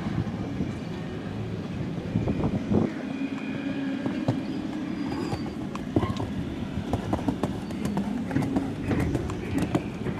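A show-jumping horse cantering and jumping on sand footing: its hoofbeats come as scattered sharp knocks over a steady low rumble, the knocks growing more frequent in the second half.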